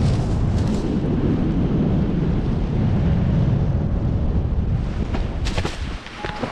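Wind buffeting the microphone in a steady low rush that drops away about six seconds in. A few sharp clicks and a short high beep follow just after it eases.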